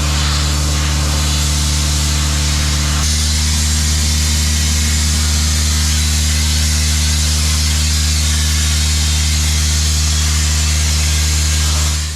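Combine harvester running steadily while cutting corn: a constant, even engine drone under a loud hiss of the working machine. It cuts off suddenly near the end.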